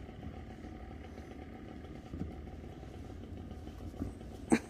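A vehicle engine idling: a steady low rumble.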